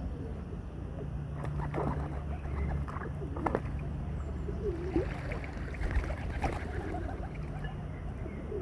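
Water birds at the lake edge being fed: splashing and short calls, scattered through the middle of the stretch, over a steady low rumble.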